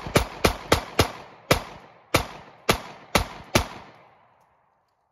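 Taurus GX4 9mm pistol firing about ten shots: a quick string in the first second, then slower, evenly spaced shots until about three and a half seconds in, each shot with a short ringing echo.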